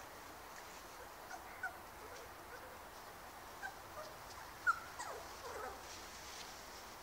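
Border Collie puppies whimpering: a few short, high squeaks, the loudest about two thirds of the way through, followed by a falling whine.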